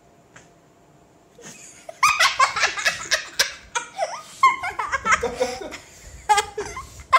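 A man and a child laughing hard, in repeated loud bursts that start about two seconds in after a quiet moment.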